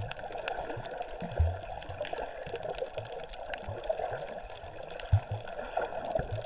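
Muffled water sloshing and bubbling heard through a camera held underwater, as swimmers splash at the surface, with short low thumps, the loudest about five seconds in.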